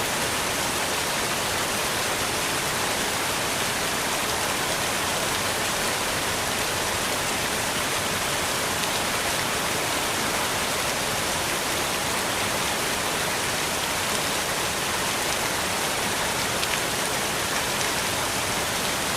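Large fountain: falling water splashing steadily, a dense even hiss with no breaks.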